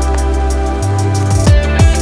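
Background electronic music with sustained chords and a deep bass, with two kick drum hits near the end.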